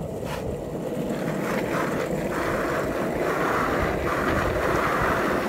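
Longboard wheels rolling over coarse asphalt, a steady rushing rumble that grows slightly louder, with wind buffeting the microphone.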